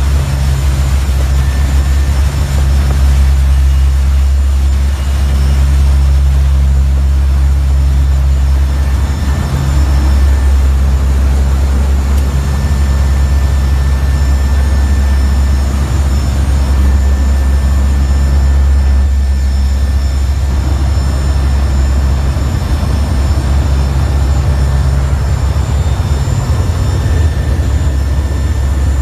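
Aircraft engines running steadily, heard inside the cockpit: a loud, even low hum with faint steady high-pitched tones above it.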